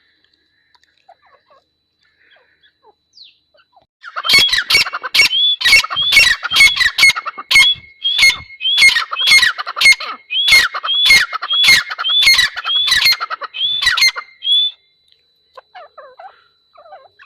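Grey francolin (teetar) calling: a loud run of repeated shrill notes, about two a second. It starts about four seconds in and stops some three seconds before the end.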